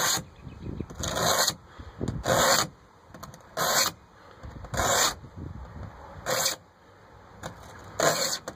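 Hand-held blade scraper dragged over a truck door panel, stripping the chalky gray oxidized layer back to the red. Seven short scraping strokes, a little over a second apart.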